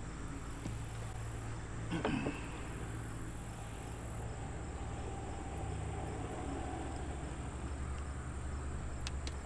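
Insects trilling steadily at a high pitch over a low steady hum, with a brief sound about two seconds in and a few faint clicks near the end.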